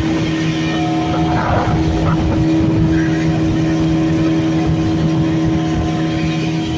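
Speedboat's outboard motor running steadily at speed, with water rushing in the wake.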